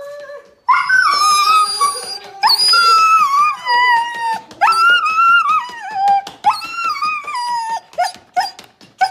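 A husky yowling and whining in long, wavering calls. Four calls of a second or two each, then a string of shorter, higher yelps near the end.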